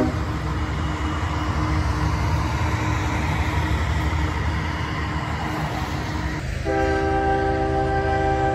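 Loaded tank cars of a freight train rolling across a railroad bridge, a steady rumble. Near the end a locomotive's air horn comes in, a loud steady chord held to the end.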